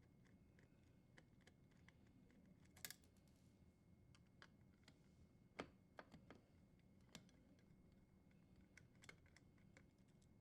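Faint, scattered small clicks and ticks of a Phillips screwdriver working the screws on a dishwasher junction-box terminal block as the power wires are freed, over near silence. The clearest are a short cluster about three seconds in and a single click a little past halfway.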